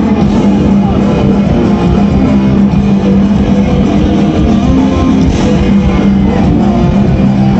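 Loud live rock music led by electric guitar, with a low note held steadily underneath.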